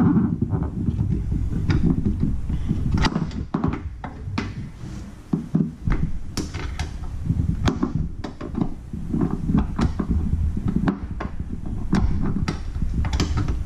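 Irregular short metallic clicks and taps of a small hex key working the bolts of a roof-rack bracket, the key being taken out and re-seated every part-turn. Under them runs a steady low rumble.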